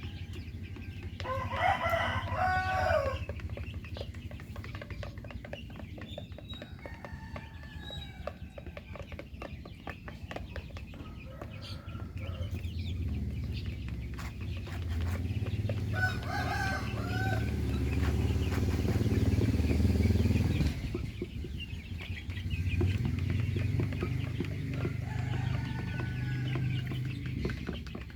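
Domestic chickens clucking, with a rooster crowing loudly about two seconds in and another loud call about halfway through, over a steady low rumble.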